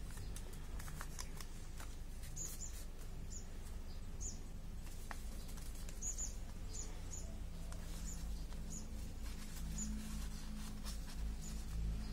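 A small bird chirping, short high chirps repeated over and over and more often in the second half, with soft crinkling of paper being creased and folded by hand.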